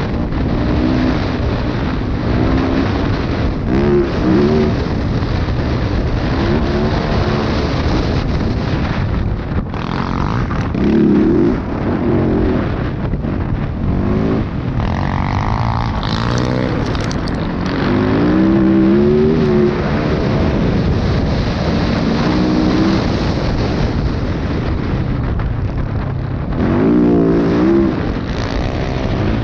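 Dirt bike engine under way, revving up in pitch and dropping back again and again as the rider works the throttle, over a steady rush of wind and trail noise.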